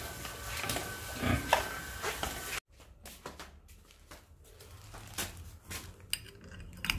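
Small metallic clicks and rattles of a key being worked in a steel padlock on a door hasp, growing louder near the end. Before that, a few knocks and a thin steady whine cut off abruptly about two and a half seconds in.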